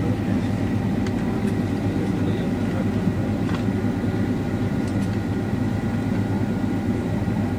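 Steady cabin rumble of a Boeing 767-336ER with its Rolls-Royce RB211 engines idling, heard from inside the cabin, with a few faint thin tones held steady over it.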